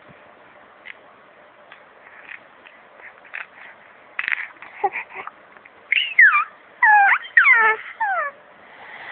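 A pet crying in a quick series of high-pitched cries that each slide downward, loudest in the last few seconds, after a few faint clicks and rustles.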